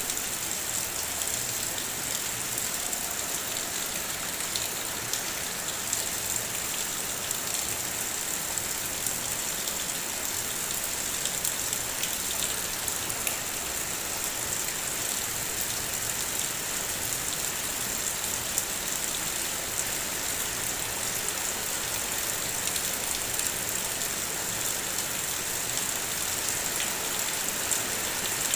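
Heavy rain falling steadily: a dense, even hiss sprinkled with many small drop taps.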